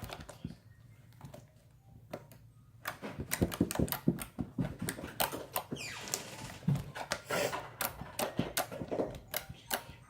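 Wet clicking and squelching of a watery jiggly slime being squeezed and stretched in the hands: quiet at first, then a fast run of sticky clicks and pops from about three seconds in.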